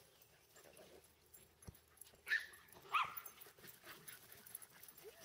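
Small dog yipping at play: two sharp, high yips, the first a little over two seconds in and the second about a second later, with fainter little yelps around them.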